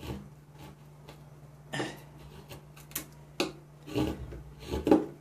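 Mora Companion carbon-steel knife cutting into a pine block: a series of short, uneven cuts and scrapes of the blade through the wood, about a second apart.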